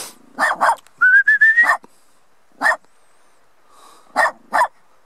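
A small dog barking in short single yaps, spread out, with a person whistling a brief rising whistle about a second in.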